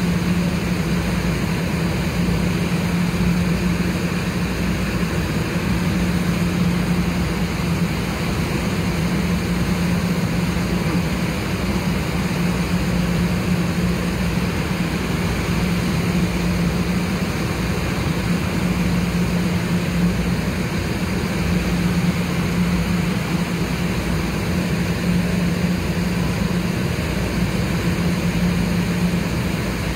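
Idling diesel locomotive of a standing Amtrak passenger train: a steady low drone that holds the same pitch throughout.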